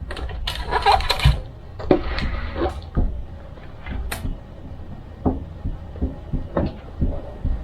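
Handling noise: scattered clicks, taps and brief rustles over a low steady hum.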